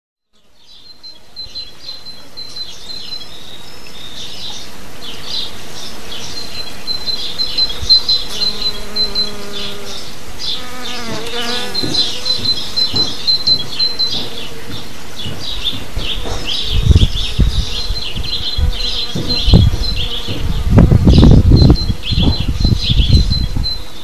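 Honeybees buzzing at fruit blossom, with songbirds trilling and chirping steadily in the background; the sound fades in at the start. A drawn-out call with falling pitch comes around the middle, and from about two-thirds in loud low surges come and go.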